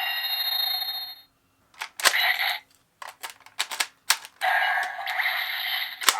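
Gabu Gabu Revolver toy gun playing electronic sound effects through its small speaker, broken by sharp plastic clicks of its mechanism. The first sound cuts off about a second in, a few clicks follow, then a quick run of clicks, then another electronic sound and a final click.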